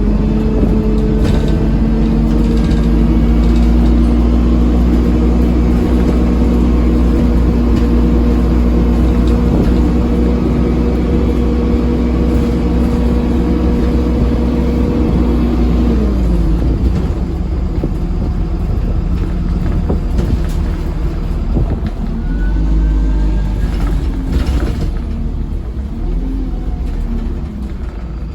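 Dennis Dart SLF bus with an Allison automatic gearbox, heard from inside, its engine pulling at steady revs with a loud whine for about sixteen seconds, then the revs dropping away as it eases off and coasts with a lower rumble.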